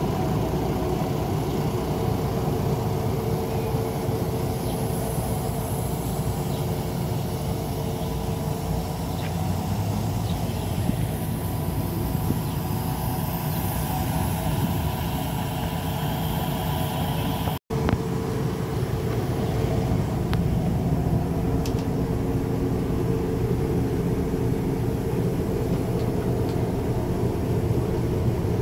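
Old German diesel railbus idling steadily while standing at the platform, a low engine rumble with a steady hum above it. The sound breaks off for an instant about two-thirds of the way through.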